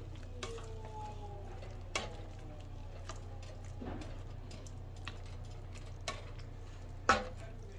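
Plastic spatula clicking and scraping against a skillet while diced chicken is stirred, with a sharper knock about seven seconds in, over a steady low hum.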